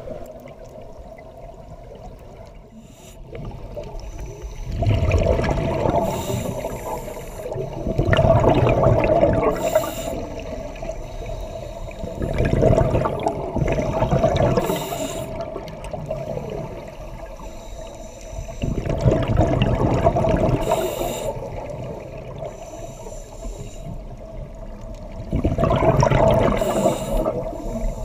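Scuba diver breathing through a regulator underwater: each exhalation sends a burst of bubbles gurgling out, about every five to seven seconds.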